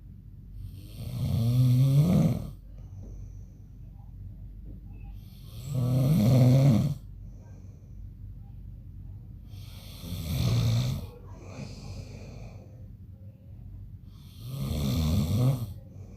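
A man snoring: four loud snores, one about every four to five seconds, each lasting a second or so.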